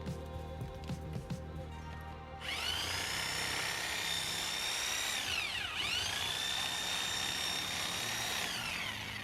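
Background music, then about two and a half seconds in a DeWalt reciprocating saw starts with a high motor whine, dips almost to a stop around the middle and speeds back up, then winds down near the end.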